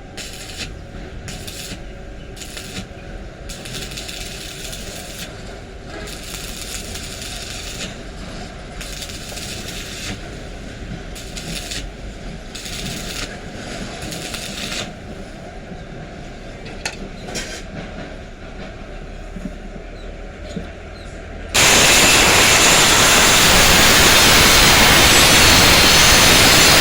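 Irregular scraping and rubbing strokes on a khukri blade during restoration. Near the end, a power tool starts abruptly and runs loud and steady.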